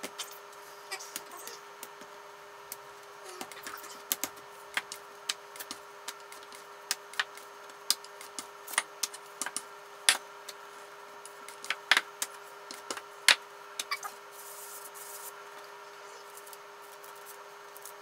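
Scattered sharp clicks and knocks from a wooden rolling pin and hands working pita dough on a paper sheet over a countertop, the loudest a few knocks about halfway through and just after. A steady faint hum runs underneath.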